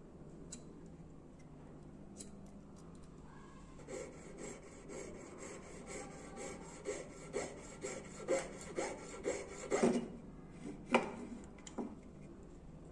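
Jeweller's piercing saw cutting through a silver ring band, in rhythmic strokes about two a second, followed by two sharp clicks.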